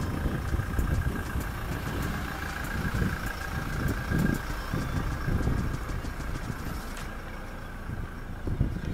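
Motor vehicle engine running nearby: a low, uneven rumble with a faint steady whine over it.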